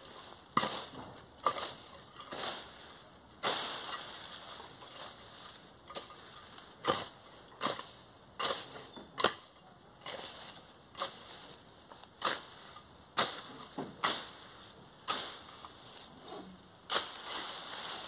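Hoe blade chopping into brush and soil, striking roughly once a second with rustling of cut vegetation between strokes.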